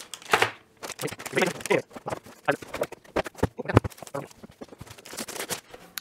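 Plastic bags of cables crinkling and rustling as they are handled and unpacked from a cardboard box, with irregular clatters and one sharper knock a little past the middle.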